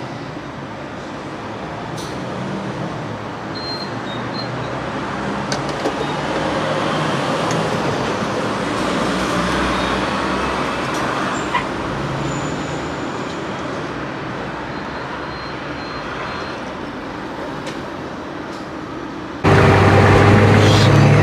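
Road traffic noise, a steady rush that swells gently, with a few faint clicks. About nineteen seconds in it switches abruptly to a much louder running vehicle engine with a steady low hum.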